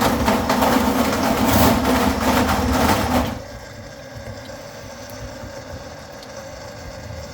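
Motorized drain-cleaning machine running steadily with its cable in the drain, then cutting off about three seconds in, leaving a quieter steady background.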